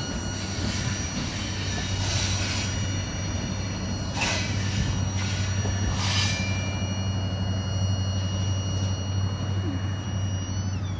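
Loaded freight train rolling past: a steady low rumble with high, thin wheel squeal held throughout, and short bursts of hiss about four to six seconds in. Near the end the squeal tones slide in pitch.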